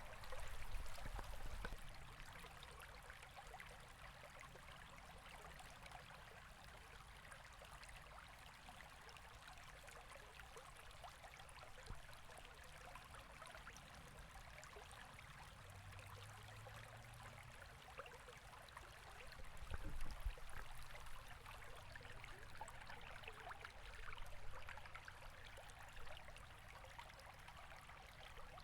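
Faint, steady rushing of a flowing river, with a few short low rumbles; the loudest come about a second in and about twenty seconds in.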